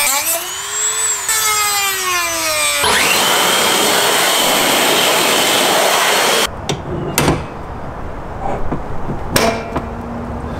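Corded rotary tool with a cutting wheel cutting off a mounting tab. Its motor whine dips and rises in pitch as the wheel bites, then turns to a steady harsh grinding for about four seconds before the tool stops abruptly. A few clicks and knocks follow.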